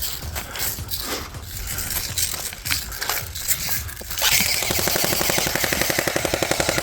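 Scattered clicks and rustling, then about four seconds in an airsoft electric rifle (AEG) starts a long full-auto burst, a fast, even rattle of the gearbox cycling. The shooter is unsure it is putting out any BBs: the gun is malfunctioning.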